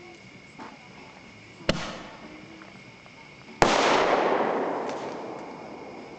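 Fireworks going off: a sharp bang about a second and a half in, then a louder bang about two seconds later whose noise trails off gradually over the next two seconds.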